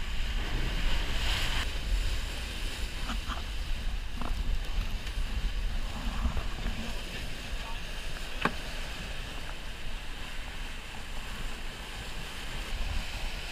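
Water rushing and splashing along a sailing yacht's hull as it sails fast through choppy sea, with wind buffeting the microphone. A few sharp clicks sound, the clearest about eight seconds in.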